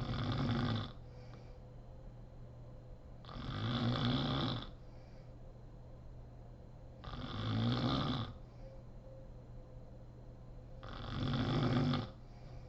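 A sleeping woman snoring: four snores about four seconds apart, each lasting about a second.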